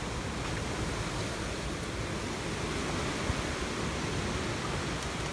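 Steady rushing hiss with wind buffeting the microphone in an uneven low rumble.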